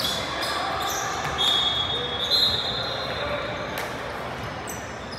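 Basketball bouncing on a hardwood court amid players' and spectators' voices in an echoing gym, with a high squeal held for about two seconds midway.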